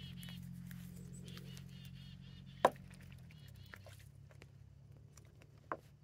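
Geese moving in the water of a plastic paddling pool: small splashes and clicks, with two sharp knocks, one near the middle and one near the end. Underneath are a steady low hum and faint high chirps.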